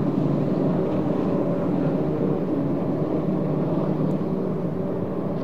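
Formula 4 racing powerboats' outboard engines running at speed, a steady drone that slowly fades.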